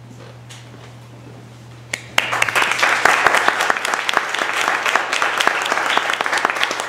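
A quiet room with a low steady hum, then an audience applauding, starting suddenly about two seconds in and continuing steadily.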